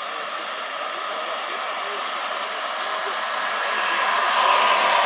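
Large scale-model Agusta A-109 helicopter powered by a PHT3 gas turbine, flying: a steady turbine whine and rotor noise that grows louder as it comes in low, loudest about four and a half seconds in.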